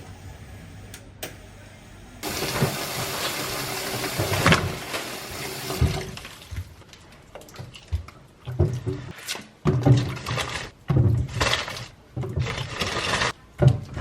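Tap water running steadily into a sink or bowl, starting about two seconds in; later it comes in a run of short separate splashes.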